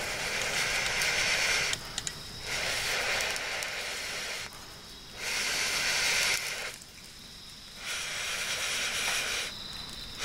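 A wood fire being fanned by breath blown through a long metal fire-blowing pipe: four long rushing puffs of about two seconds each, with short pauses for breath between them.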